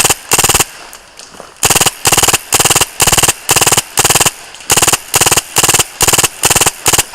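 Airsoft rifle firing on full auto in a rapid string of short bursts, about sixteen in all, each a quick rattle of shots, with a pause of about a second near the start.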